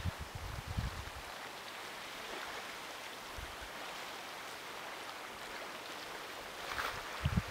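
Gentle water washing along an icy shoreline, heard as a steady soft hiss, with low wind buffets on the microphone in the first second and again near the end.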